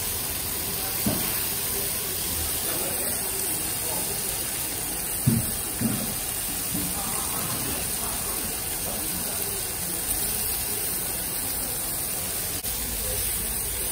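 Meat and octopus sizzling on a tabletop grill pan, a steady hiss, with a few clinks of metal tongs and scissors on the pan, the loudest about five seconds in.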